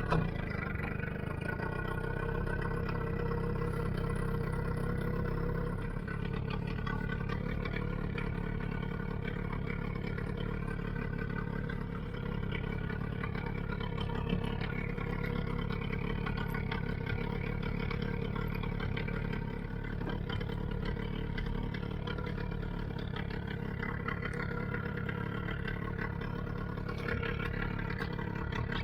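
Small outboard motor running steadily at a constant low speed, with no change in pitch.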